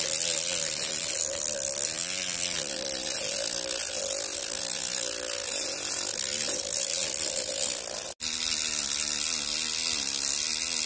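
Small battery-powered motor fitted with a sandpaper drum, running steadily while sanding the edges of 6 mm MDF boards, with the motor's hum and the scratchy rasp of sandpaper on board. There is a brief break about eight seconds in.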